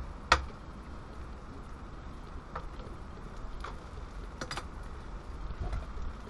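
A metal spatula clacking against a frying pan of chilli con carne as it is stirred. One sharp clack comes about a third of a second in, then a few lighter clicks and taps as the utensils are put down, over a steady low hiss.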